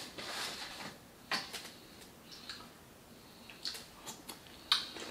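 Close-miked eating sounds from a birria taco: a soft rustle in the first second, then scattered short, sharp mouth clicks and smacks, the loudest near the end.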